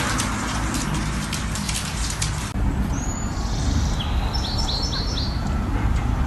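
A rapid patter of clicks, then after a cut a small bird chirping: one short high call, then a quick run of four chirps, over a steady low rumble.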